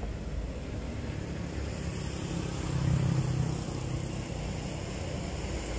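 A motor vehicle going by, its engine noise swelling about halfway through and fading again over a steady low rumble.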